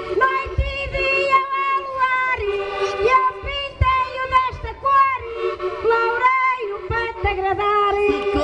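Woman singing a Portuguese desgarrada verse into a microphone through the PA, with an accordion accompanying on held chords.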